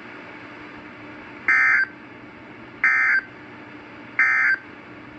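NOAA Weather Radio SAME end-of-message data bursts: three short, buzzy digital bursts about 1.4 seconds apart, marking the end of the broadcast message. A faint steady hum runs underneath.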